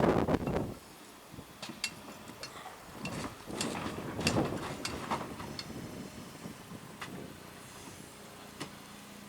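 Scrapping of a boat: cracking and crunching with scattered sharp knocks, with a louder crunch about four seconds in.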